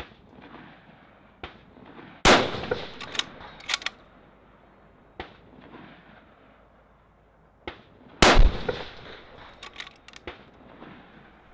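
Two rifle shots from a 6.5 Creedmoor bolt-action precision rifle fired off a tripod, about six seconds apart, each trailing off over about a second and followed by a few sharp metallic clicks.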